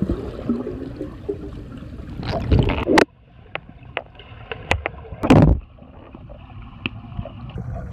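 Underwater pool sound picked up through a phone's waterproof case: a muffled low rumble of moving water, with sharp clicks and knocks against the case. Two louder rushes of water break through, about two and a half seconds in and again a little past five seconds.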